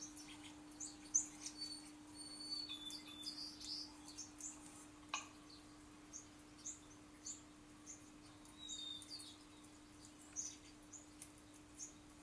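Small songbirds chirping and twittering from a bird video on a laptop's speakers: many short, high chirps, with a brief whistled note about three seconds in and again near nine seconds.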